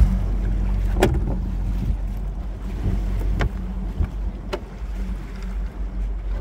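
Steady low rumble of wind and water around a small fishing boat, broken by a few sharp knocks: about a second in, then twice more near three and a half and four and a half seconds.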